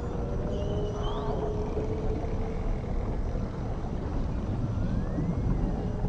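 Underwater recording of whale and dolphin calls: a long low moan that slowly falls over the first couple of seconds, with higher whistles gliding up about a second in and one rising and falling near the end, over a steady low rumble of the sea.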